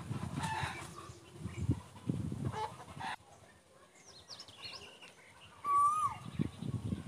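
Chickens, one giving a short falling squawk about six seconds in, over low thuds and rustling. Small birds chirp faintly in the middle.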